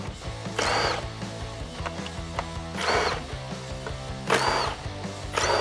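Cordless drill/driver with a 7mm socket spinning in four short bursts, each under half a second, backing out the screws that hold a fog light in a bumper.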